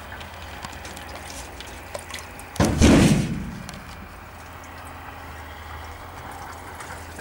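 A single heavy thump about two and a half seconds in, fading out over most of a second, over a steady low hum.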